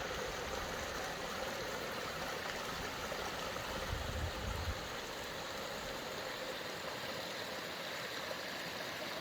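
Running water from a small mountain stream, a steady rush, with a brief low rumble about four seconds in.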